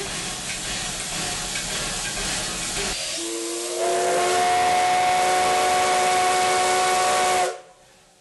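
Steam locomotive whistle heard from inside the cab: a steady hiss of steam, then about three seconds in the whistle sounds a chord of several notes, held for about four seconds and cut off sharply.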